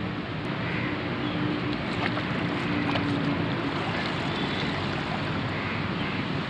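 Water splashing and pouring through a plastic mesh basket as it is scooped out of a river, over a steady rush of river water. A faint steady hum sounds through the first half.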